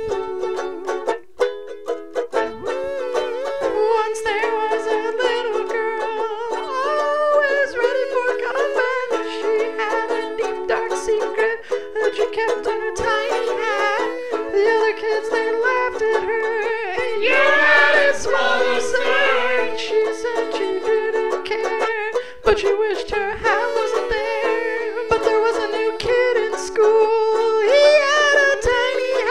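A song: a high voice singing over a plucked string instrument.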